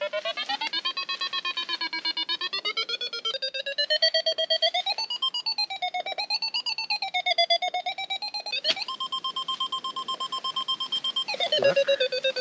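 Metal detector giving its audio signal: a rapid pulsing electronic tone whose pitch slides up and down as the coil sweeps, and holds level for a few seconds near the end, marking buried metal in the ground.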